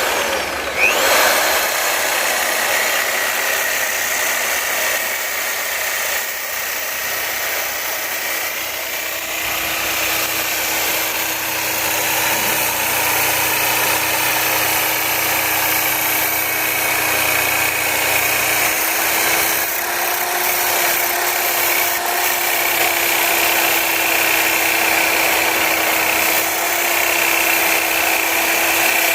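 Electric drill running with a cutting disc fitted as a homemade cutter: a steady motor whine at one pitch over a dense, hissing cut noise.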